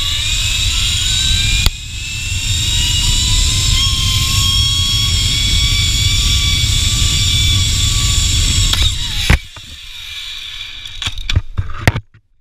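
Zipline trolley pulleys whining along the steel cable, the whine rising in pitch as the rider speeds up and then holding steady, over heavy wind rumble on the microphone. About nine seconds in a sudden loud clunk, after which the whine and wind drop away, and a few sharp metallic clicks near the end as the rider reaches the platform.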